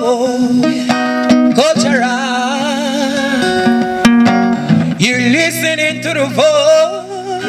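Acoustic reggae song played live: an acoustic guitar strummed, with a man's voice singing long, wavering notes over it.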